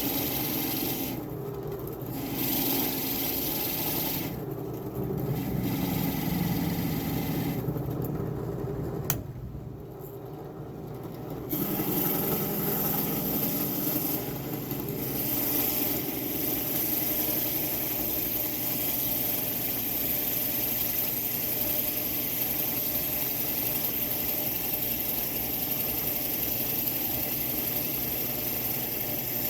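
A woodworking power tool's motor running steadily while cutting wood, with a steady hum and hiss. The hiss drops out briefly several times in the first half.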